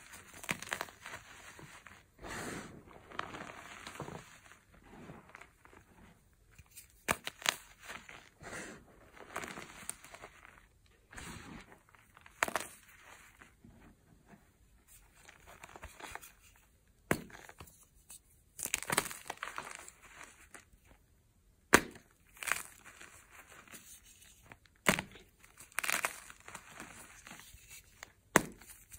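Hands squeezing and crumbling powdered gym chalk: an irregular run of soft, gritty crunches, with a few sharper cracks spread through it.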